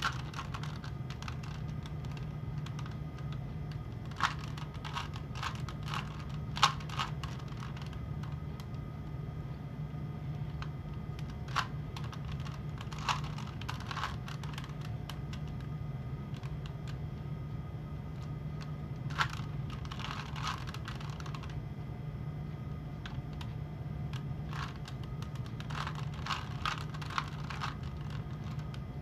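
Plastic Rubik's Cube layers being turned by hand: rapid clicking and clacking that comes in bursts with pauses between, over a steady low hum.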